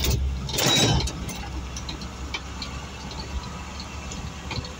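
Vehicle driving, heard from inside the cabin: a steady low engine and road rumble with scattered light rattles, and a brief louder rush of noise about a second in.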